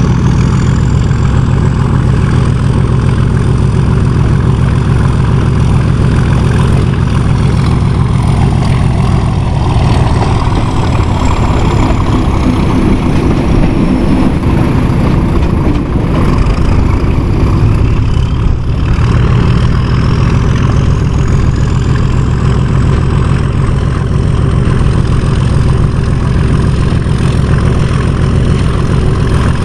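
Diesel locomotive's engine working hard under load, a loud steady low-pitched rumble. A faint high whistle rises and falls over it twice.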